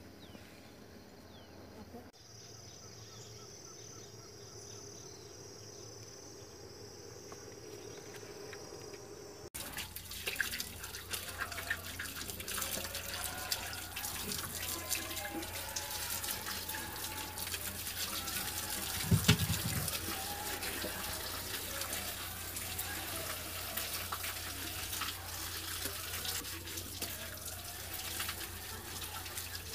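Tap water running into a concrete washtub as freshly dug sweet potatoes are rubbed and splashed clean by hand, with one louder bump about two-thirds of the way through. The water starts about a third of the way in, after a quieter stretch with a steady high drone.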